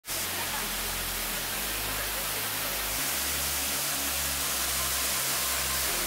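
Steady rush of a waterfall's falling water, with a deep bass line from background music changing note every second or so underneath.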